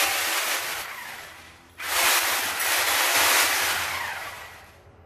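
Electric angle grinder switched on in two short runs, the second starting about two seconds in. Each run starts abruptly as a loud, hissing rush and then dies away over a second or two.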